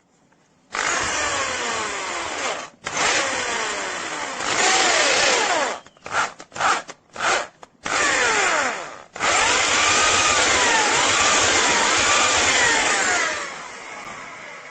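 Electric drill boring out a stripped threaded hole in aluminium to enlarge it for a Helicoil insert. It runs in bursts, two runs, then several short blips, then one long run of about four seconds that trails off near the end, its motor pitch rising and falling as it goes.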